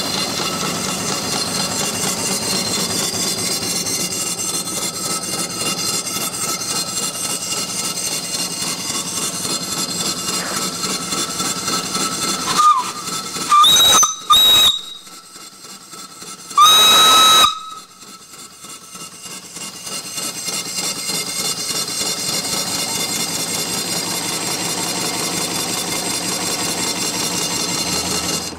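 Small steam engine running with a steady hiss and a fast, even exhaust beat. About halfway through, the boiler's steam whistle, worked by a pull chain, is blown in three short toots and then one longer blast.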